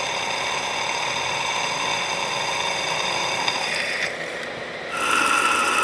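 Milling machine spindle driving a twist drill through a metal jig plate: a steady machine whine of several even tones with cutting noise under it. About four seconds in it drops for a moment, then a louder, higher whine takes over near the end.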